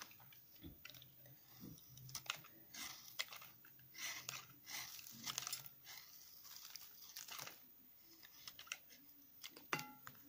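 A blade shaving and scraping a crumbly bar of soap made of leftover pieces pressed together, in a run of short crunchy strokes. A few sharp clicks come near the end, one with a brief metallic ring.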